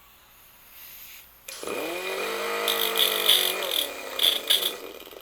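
A small grinder spins up about one and a half seconds in and runs steadily, with short bursts of high-pitched grinding as it takes the dimples and raised edges off a chainsaw chain's drive links. It winds down near the end.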